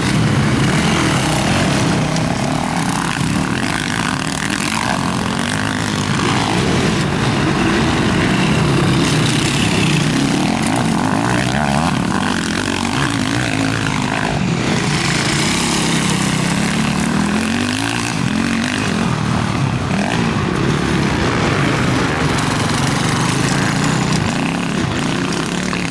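Several motocross bikes' engines running hard and passing by, with the pitch climbing and dropping over and over as the riders open and close the throttle.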